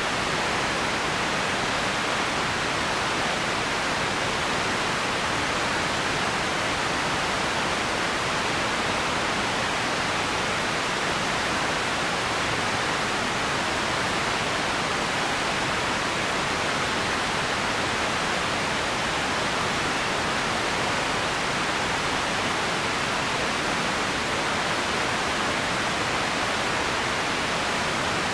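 Empty ambience noise bed: a steady, even hiss with no separate sounds in it.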